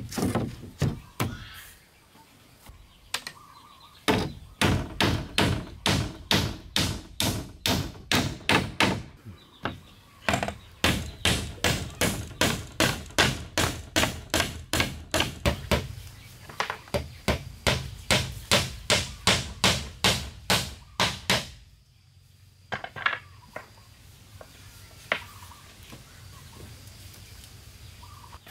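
Hatchet used as a hammer, nailing wooden planks onto the shelter frame: long runs of rapid, even blows about three a second, with a short pause between them, then a few single knocks near the end.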